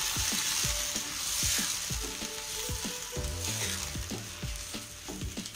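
Water sizzling in a hot kadai of fried vegetables and masala while a wooden spatula stirs it, knocking and scraping against the pan many times. The sizzle fades gradually as the water cools the pan.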